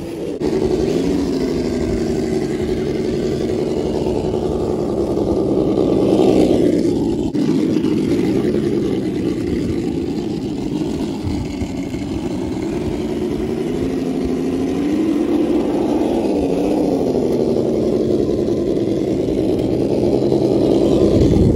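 Brushless motor and gear drivetrain of a Traxxas TRX-4 Tactical Unit RC truck running on sand, its pitch rising and falling with the throttle.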